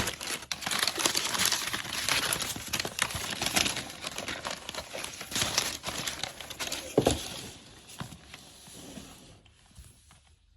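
Keyboard packaging rustling and crinkling as it is unboxed, with many small clicks, and a single thump about seven seconds in; the handling dies away near the end.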